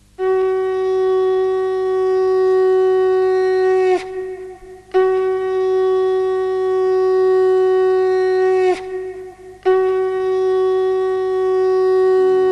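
Conch shell (shankha) blown in three long, steady blasts separated by short breaths, each blast bending slightly down in pitch as it ends. Three conch blasts are the traditional auspicious call that opens a Durga invocation.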